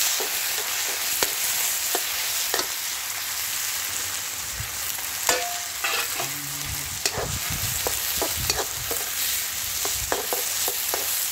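Sliced onions sizzling in hot oil in an iron kadai. A steel ladle stirs them, scraping and clicking against the pan every second or so.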